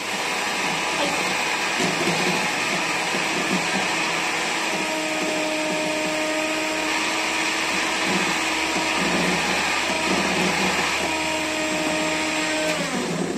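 Electric hand mixer running steadily, its beaters whipping instant coffee, powdered sugar and water into foam in a glass bowl; the motor stops near the end.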